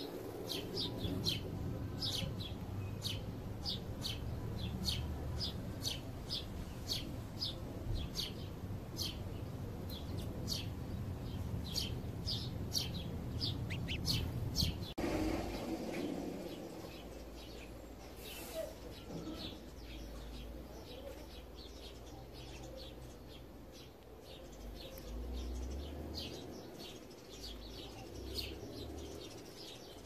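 House sparrows chirping: a steady run of short, sharp chirps, about two a second. About halfway through they become sparser and fainter. A low background rumble runs underneath.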